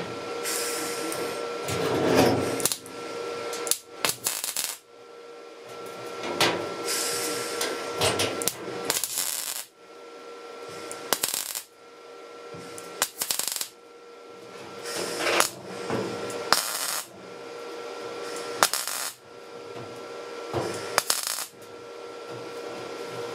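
MAG (gas-shielded MIG) welder tack-welding thin sheet steel: about a dozen short bursts of arc crackle, each lasting under a second to about a second, with pauses between tacks and a faint steady hum underneath.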